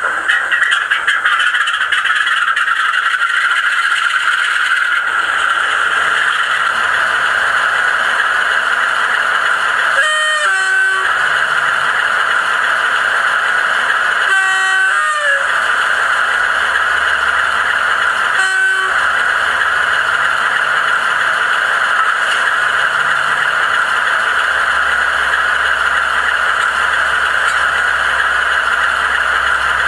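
Howes DCC sound decoder in a Bachmann class 47 model locomotive, playing a diesel engine idling steadily through the model's small speakers. The two-tone horn sounds three times, about 10, 14 and 18 seconds in, each time stepping from a high note to a low one; the last is the shortest.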